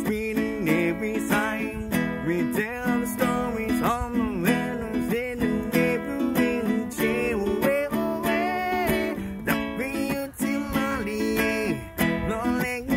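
Ukulele strummed in a steady rhythm, with a wordless vocal melody over it that glides up and down.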